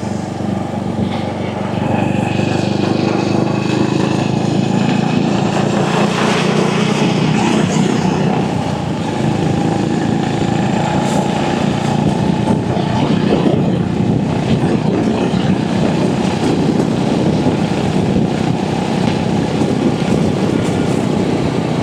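Royal Enfield Hunter 350's single-cylinder engine running steadily under way, through a fitted exhaust, with wind and road noise. It gets a little louder about two seconds in.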